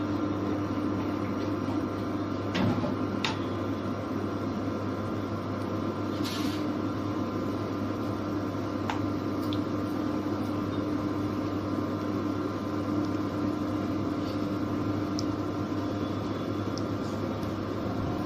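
Cumin seeds sizzling in hot oil in a steel pot as they begin to crackle, with a few sharp pops, over a steady hum.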